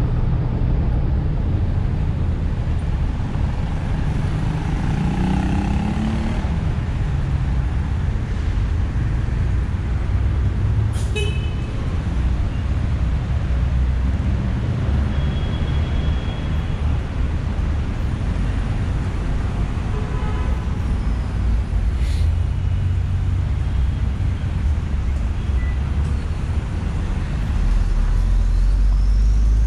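Steady road traffic on a busy city avenue: cars and buses running past in a continuous low rumble, with a few short high-pitched sounds such as horn toots. A deeper rumble swells near the end.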